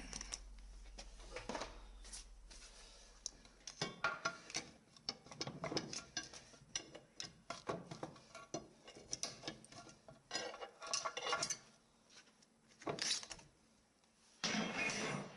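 Metal gearbox parts being handled: irregular clinks, clanks and scrapes of steel on steel, with a louder scraping burst near the end.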